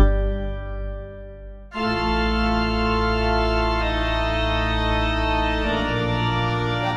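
Organ music of long held chords: the first fades away, then a new chord comes in suddenly just under two seconds in and is held, changing near the end.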